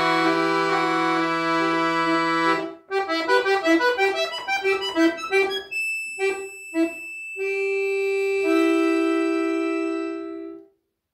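Accordion playing a held chord, then a passage of short detached notes, then a closing sustained chord that fades out and stops near the end.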